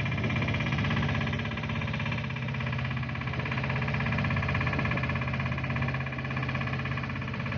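Small tour boat's engine running steadily while under way, a low even drone with a fast pulse.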